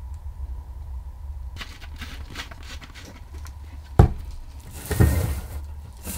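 Objects being handled on a workbench: light clicks and taps, a sharp knock about four seconds in as a plastic bottle is set down, then a scraping rustle, over a low steady hum.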